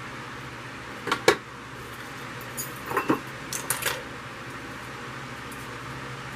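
Small hard objects clicking and clinking on a tabletop as rhinestone mesh wrap and craft pieces are handled: two sharp clicks about a second in, then a cluster of rattling clinks around three to four seconds in, over a steady hum.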